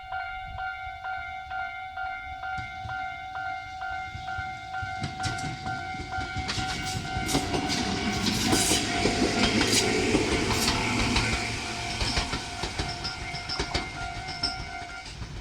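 Japanese level-crossing warning bell ringing its rapid repeating electronic ding, while a train passes over the crossing. The train builds up from about five seconds in, its wheels clicking over the rail joints, and is loudest around the middle before fading.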